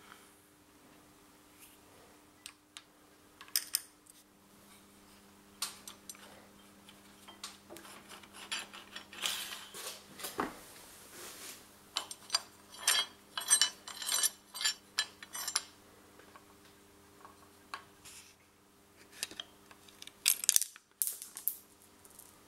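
Small metal and plastic parts of a Triumph Roadster steering-wheel horn push and indicator switch being handled and taken apart: scattered clicks and light metallic clinks, busiest in the middle and again near the end, over a faint steady hum.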